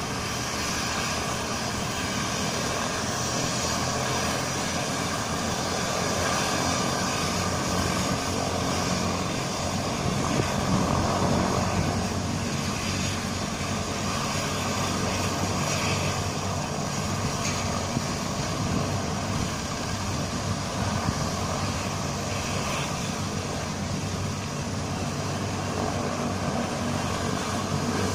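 Rescue helicopter running on the ground, a steady turbine whine and rotor noise that hold level throughout.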